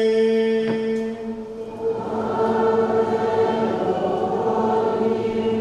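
Choir and congregation singing a slow, held liturgical response. A sustained note breaks off about a second in, and after a short dip the singing resumes with long held notes.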